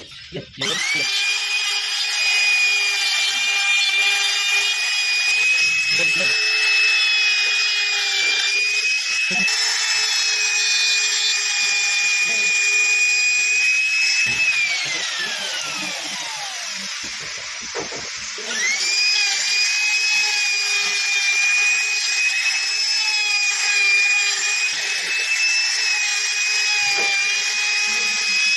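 Handheld trim router cutting a lock recess into a wooden door frame: a high-pitched motor whine that runs for about fourteen seconds, winds down with falling pitch, then starts again and runs until it winds down near the end, its pitch sagging a little as the bit bites into the wood.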